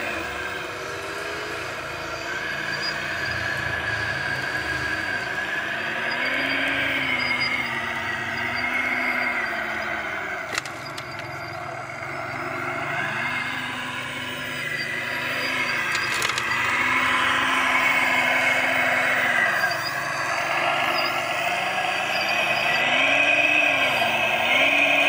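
Radio-controlled model construction machines at work: their electric motors and gearboxes whine, the pitch rising and falling over and over as they speed up and slow down, with a couple of sharp clicks along the way.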